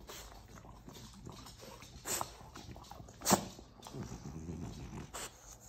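French bulldog sniffing a hand up close: low snuffling with two short, sharp sniffs about two seconds in and a second later, the second the loudest.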